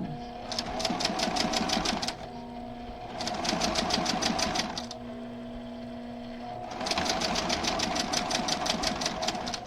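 Sewing machine stitching a seam in three runs of rapid, even stitches, pausing briefly between them with the motor humming, as short quilt pieces are sewn onto a long fabric strip.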